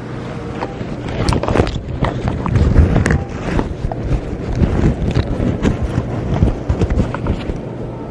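Handling noise from a camera being moved around by hand: fabric rustling against the microphone, with many irregular knocks and bumps. A steady low hum runs underneath.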